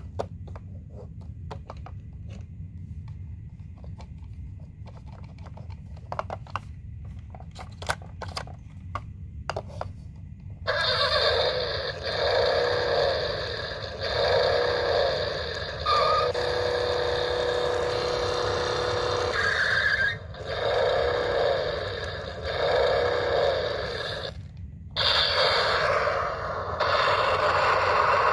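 Electronic sound effects from a Road Rippers toy Ford Mustang's built-in speaker, set off by its roof buttons: loud, in repeating cycles, with two short breaks. Before they start there are about ten seconds of scattered clicks and handling noise.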